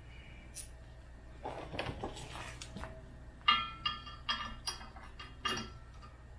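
Handling rustle, then about five sharp metallic clinks with a short ring, from a steel rear receiver hitch and its mounting hardware knocking against the tractor's frame as it is fitted into place.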